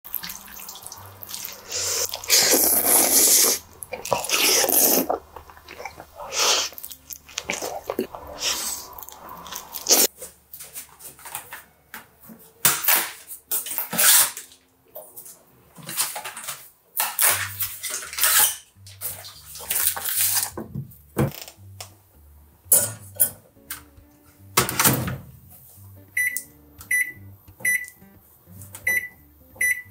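Food-prep handling: packaging and a sauce pouch rustled and handled, with clatters from pans and utensils. Near the end, a run of short high beeps from a Sharp microwave oven's keypad as its timer is set.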